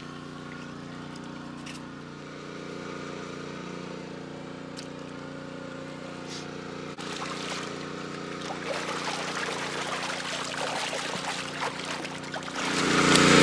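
A water pump runs steadily in the background while carp splash in a water-filled holding tank. The splashing grows and becomes loud near the end as the fish thrash and churn the water.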